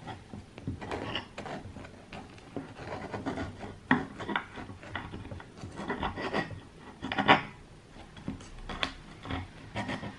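A table knife sawing through crisp pizza crust, steadied by a fork, in a series of uneven back-and-forth strokes, loudest about four and seven seconds in.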